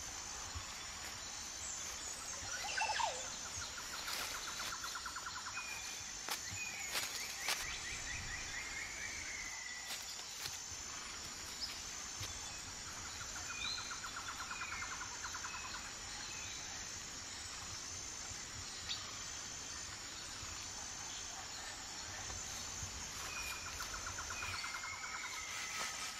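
Tropical forest ambience: birds chirping and whistling over a steady, evenly pulsing high insect buzz. A rapid bird trill comes back about every ten seconds, and a few sharp clicks are heard.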